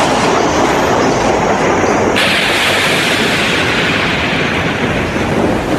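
Radio-drama storm sound effect: wind and heavy rain making a dense, steady rush that turns harsher and brighter about two seconds in.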